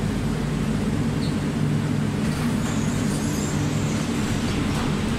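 Barcelona metro (TMB) train standing at the platform with its doors open, giving a steady low hum.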